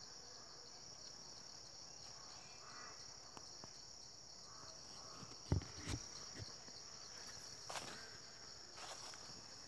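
Steady, high-pitched drone of a chorus of forest insects. Two dull thumps come a little past halfway, and dry leaves rustle and crunch underfoot near the end.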